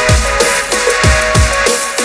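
Background electronic music in a drum-and-bass style: steady punchy kick drums with falling bass sweeps about three times a second, under sustained synth tones.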